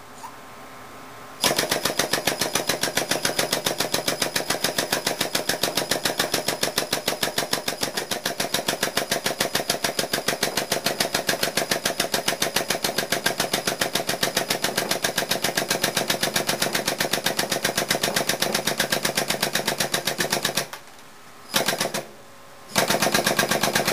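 Air-over-hydraulic shop press pump chattering in rapid, even pulses as the ram drives a keyway broach through a bead roller die blank. It starts about a second and a half in, runs steadily, then near the end cuts out, gives one short burst, and starts again.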